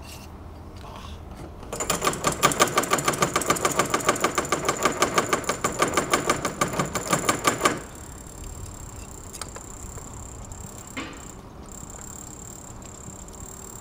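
A loud, rapid, rhythmic mechanical clatter lasting about six seconds. It starts about two seconds in and cuts off suddenly.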